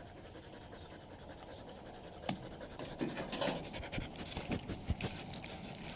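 Rounded safety scissors cutting down the middle of a duct-taped dog boot: a few sharp snips and scratchy tape sounds, starting about two seconds in and coming irregularly.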